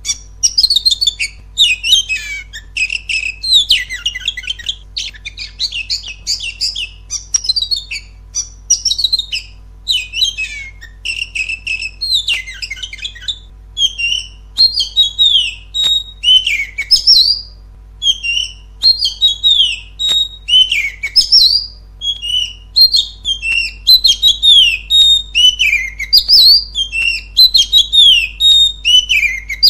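Oriental magpie-robin (kacer) singing a loud, continuous song of quick varied whistles, chirps and falling glides, with only short breaks between phrases. It is a lure song of the kind played to provoke other caged magpie-robins into singing.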